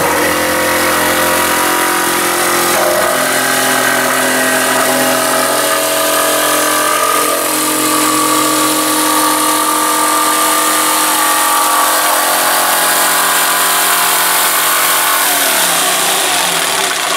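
Corded electric jigsaw sawing through a thin plywood board, its motor and reciprocating blade running steadily throughout; the motor slows and stops just before the end as the cut pauses.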